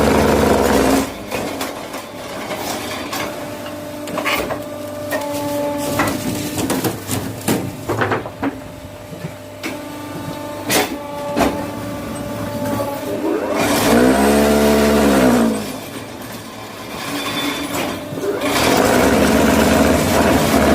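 Electric motor of a concrete block press machine running in bursts. It runs loud at first, then quieter with knocks and clanks. About fourteen seconds in it comes on loud, rising in pitch and falling away as it spins down, and it runs loud again near the end.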